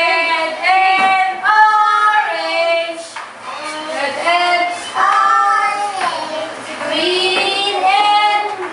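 Young children singing a classroom song together, with a woman's voice leading, in phrases of long held notes with short breaks between them.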